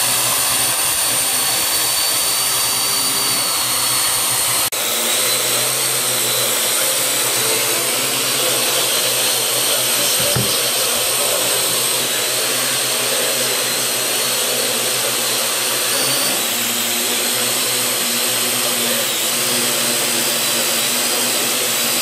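Parrot AR.Drone quadcopter in flight, fitted with its indoor hull: its four motors and propellers make a steady, high-pitched whir, with a short break about five seconds in and the pitch shifting slightly now and then as the drone adjusts.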